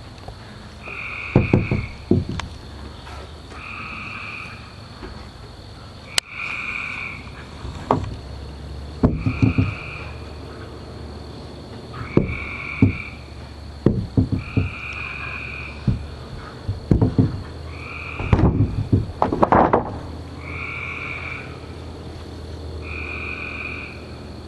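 A night-time animal call of two high tones, each about half a second long, repeating every two to three seconds over a steady high insect drone. Loud, irregular low knocks and grunt-like bursts come between the calls, thickest near the end.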